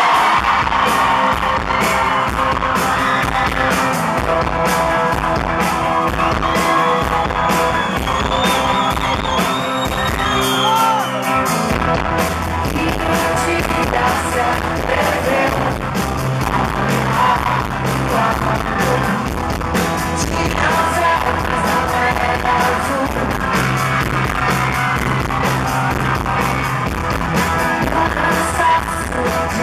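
Live rock band playing, with a woman singing over drums and guitar. The low end gets heavier about twelve seconds in.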